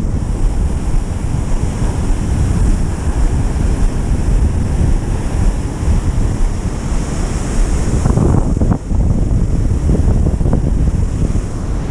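Rough surf breaking and washing up the beach, with strong wind buffeting the microphone in a steady low rumble.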